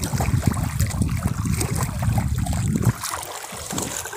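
Seawater sloshing and lapping against the hull and outrigger of a small boat, with a low rumble that cuts off sharply about three seconds in.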